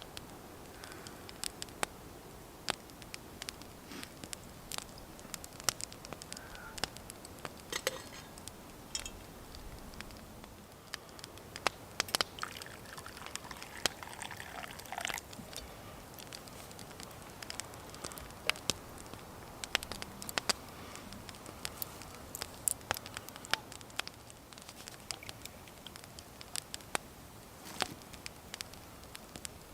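Wood campfire crackling, with many sharp irregular pops and snaps over a faint steady hiss.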